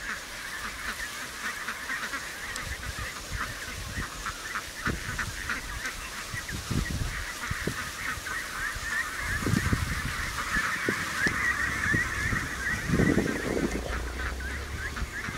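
A flock of domestic ducks calling continually in a dense, overlapping chatter, with a few louder low noises around the middle and near the end.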